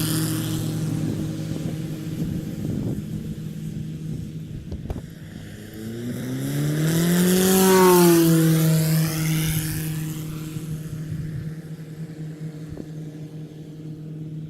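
An engine running steadily, whose pitch and loudness climb and then fall back about seven to eight seconds in, before it settles and fades.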